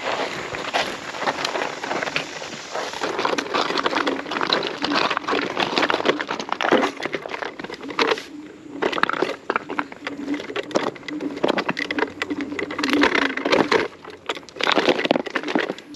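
Pneumatic off-road tyres of a Varla Eagle One electric scooter crunching and crackling over loose gravel and rock, with many small clicks and rattles. A faint steady low hum runs under it through the middle stretch.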